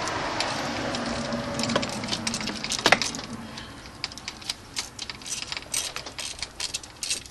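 Socket ratchet clicking in quick irregular runs, a few clicks a second, as a 7 mm coil hold-down screw is backed out. One louder click comes about three seconds in.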